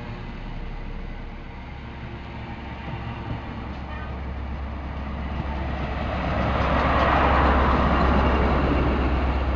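High Speed Train running slowly into the platform: a steady low diesel hum and the rumble of coaches rolling past. It grows louder from about six seconds in as the Class 43 diesel power car comes alongside.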